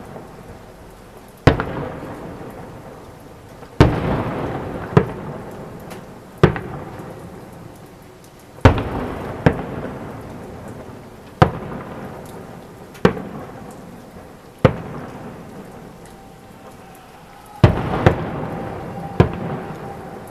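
Fireworks salute: aerial shells bursting about a dozen times at uneven intervals, each sharp bang followed by a long rolling echo that fades over a couple of seconds.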